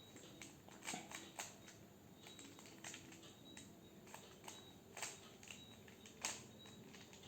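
Faint, irregular clicking of a plastic 3x3 Rubik's cube as its layers are turned by hand, with a few louder clacks at about a second, five and six seconds in.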